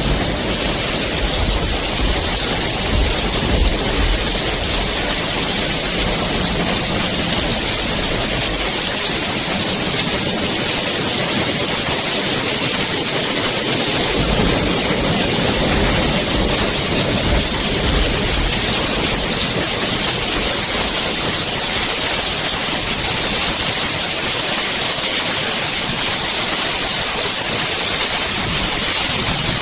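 Heavy, steady rain with a bright hiss. A low rumble sits under it for the first several seconds and again about halfway through.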